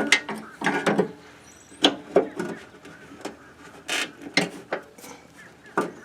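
Irregular metallic clicks and clinks from hand tools working a retaining key out of a riding lawnmower's deck attachment point.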